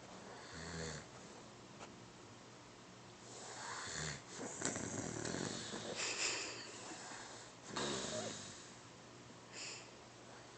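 A sleeping person snoring: several snores of uneven length, the longest a ragged stretch of a few seconds in the middle, with shorter ones before and after.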